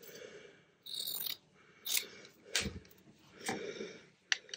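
Scraps of fabric and printed paper rustling in several short bursts as they are handled and laid onto a fabric tag, with a sharp tap near the end.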